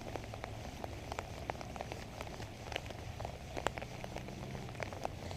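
Rain falling, with many scattered sharp drop ticks over a steady patter and a low steady hum underneath.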